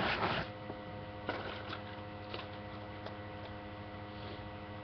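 Steady electrical mains hum, with a short rushing burst at the start, a smaller one about a second and a half in, and a few faint knocks.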